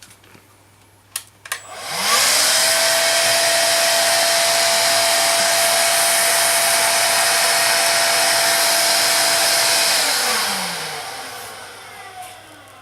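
Vax Air cordless upright vacuum cleaner (U86-AL-B) with a nozzle attachment fitted: a couple of clicks, then the motor spins up with a rising whine, runs steadily with a loud rush of air for about eight seconds, and is switched off, its whine falling as it winds down.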